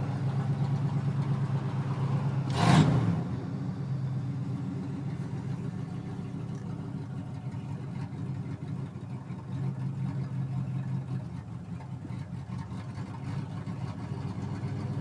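1980 Ford F100's 302 V8 running steadily, heard from inside the cab, with a brief loud rush of noise about three seconds in.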